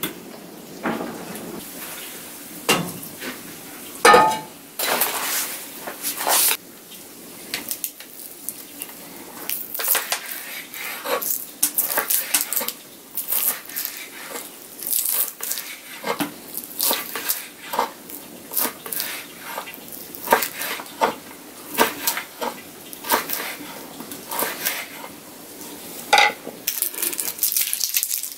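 Kitchen knife chopping raw fat on a wooden cutting board: irregular knocks of the blade against the board, with a louder knock about four seconds in.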